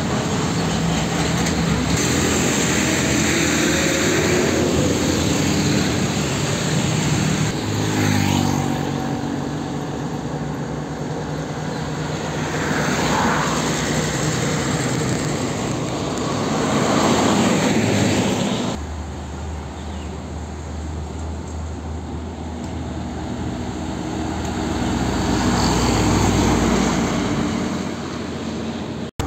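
Heavy diesel trucks driving past one after another, their engines running and the sound swelling as each one passes. The sound changes abruptly about two-thirds of the way through.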